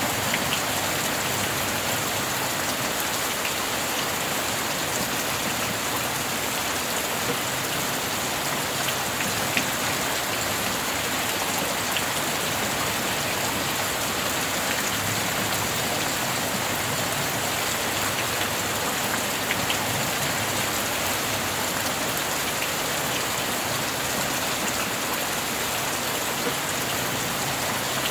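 Steady rain falling: an even hiss with scattered individual drops ticking now and then.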